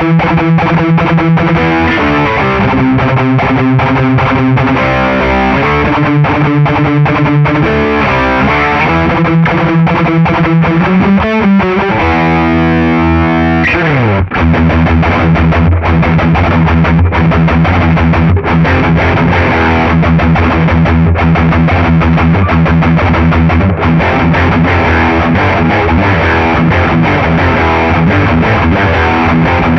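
Ibanez RG350MZ electric guitar played through heavy distortion: quick single-note runs for the first twelve seconds or so, a held note that ends in a fast falling slide about 14 seconds in, then low riffing on the bass strings.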